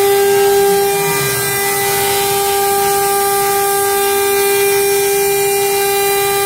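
JIKE 1325A CNC router's spindle running at speed with a steady, unchanging high whine and its overtones.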